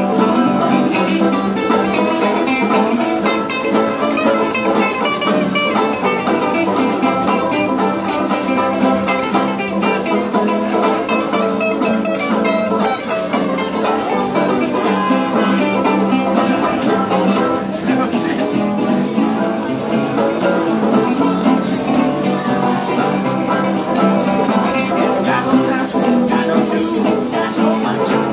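Acoustic string band playing together: banjos and acoustic guitars picked and strummed, continuously.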